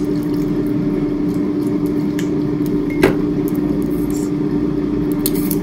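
Air fryer running with a steady, even fan hum at one pitch. A single sharp knock about three seconds in.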